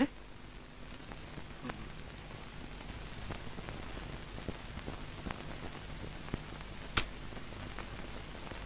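Quiet soundtrack hiss with a low hum and a few faint scattered clicks; one sharper click about seven seconds in.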